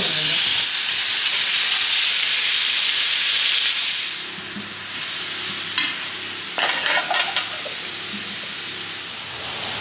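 T-bone steak sizzling on a hot cast-iron grill pan, a loud steady hiss that drops to a quieter sizzle about four seconds in. A few short clinks come around the middle.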